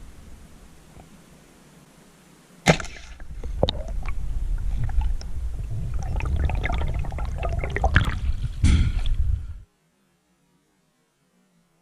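Underwater speargun shot: a sudden sharp crack about three seconds in, followed by several seconds of churning, bubbling water with scattered knocks and clicks. The sound cuts off suddenly near the end.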